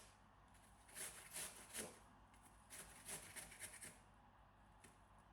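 An apple being pushed in quick scraping strokes across the blade of a hand kitchen cutting tool: three strokes about a second in, a cluster of strokes around the middle, then only faint sounds near the end.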